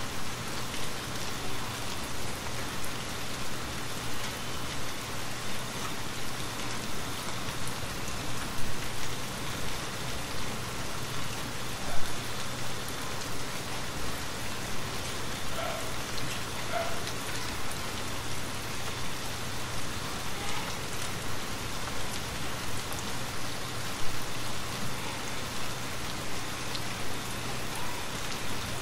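Steady rain falling on a wooden cabin's roof and windows, with a few sharp crackles from a wood fire, the loudest about twelve and twenty-four seconds in.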